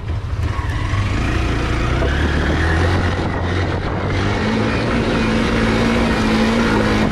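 Motorcycle engine running hard, carrying a single rider up an off-road slope; a steady engine note with its pitch shifting a couple of times.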